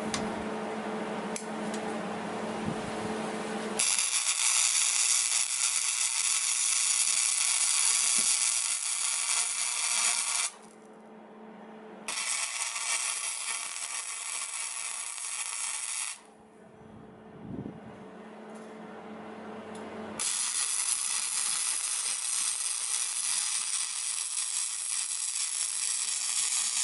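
Flux-core wire-feed welder laying beads: the arc crackles and hisses in three runs, about six, four and seven seconds long, starting about four seconds in. A steady low hum fills the short gaps between runs.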